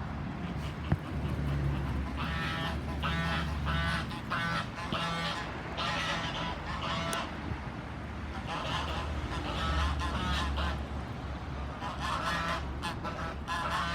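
Geese honking in repeated calls, about two a second, in three bouts with short pauses between them, over a steady low rumble.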